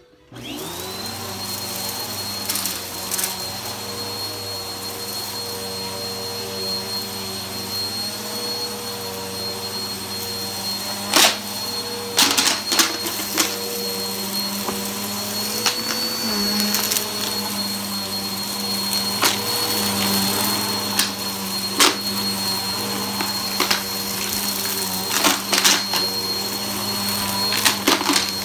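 Bissell upright vacuum cleaner switching on, its motor whining up to speed within the first second and then running steadily. From about a third of the way in it picks up debris from the carpet, with scattered sharp cracks and rattles as bits are sucked in.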